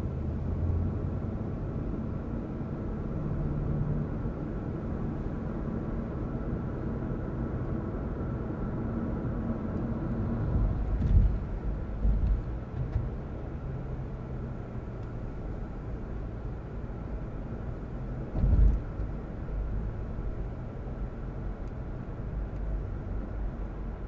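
Car cabin noise while driving: a steady low rumble of tyres and engine, with a few short low thumps about halfway through and again later, typical of wheels going over bumps or joints in the road.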